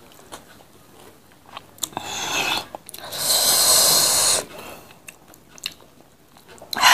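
Close-miked eating: chewing and crunching food by mouth, with small clicks as fingers pick at rice on a tray. About three seconds in there is a louder rushing noise that lasts about a second and a half.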